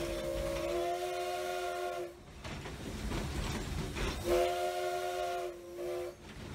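Steam locomotive whistle, pulled by its cord, sounding two blasts of several notes at once: the first rises slightly in pitch about a second in and stops about 2 s in, and the second starts about 4 s in and ends with a short stutter near the end.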